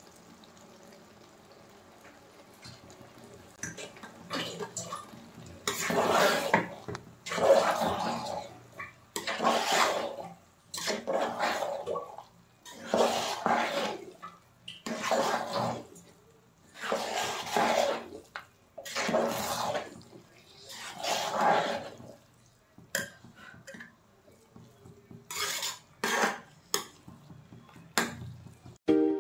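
Partly cooked rice with herbs and green chillies being mixed in a metal pot, first by hand and then with a spoon. Wet, scraping strokes come about every second and a half, starting some four seconds in, and turn shorter and sharper near the end.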